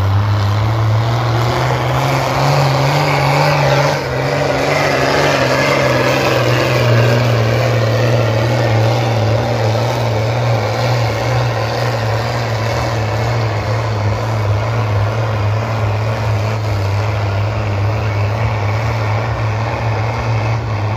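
A modified pulling tractor's diesel engine running flat out under heavy load as it drags a weight-transfer sled: a loud, deep, steady drone that holds its pitch.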